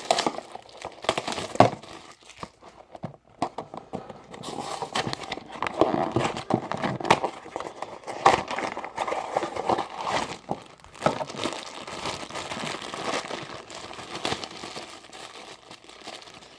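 Funko Mystery Mini blind-box packaging being opened by hand: irregular crinkling, rustling and tearing with sharp clicks as the box and its wrapping are pulled apart.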